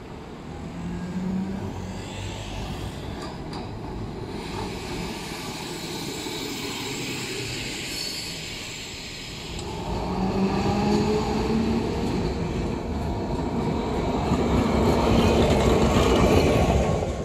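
Vintage Milan 'Ventotto' (Class 1500) tram running past close by: steel wheels rumbling on the rails with a low hum that rises and falls. It grows louder in the second half and cuts off suddenly at the end.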